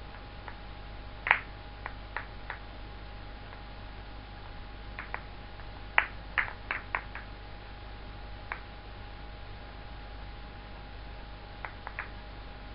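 Four 70 mm acrylic contact balls knocking against one another as they are rolled around in the hands: irregular sharp clicks, with the loudest about a second in and a quick cluster around six seconds.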